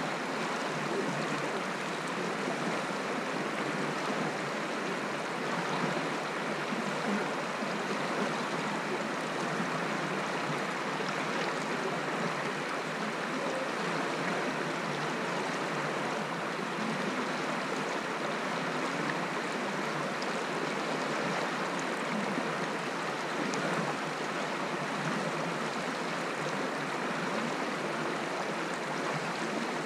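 Shallow stream running over stones, a steady rushing babble of water.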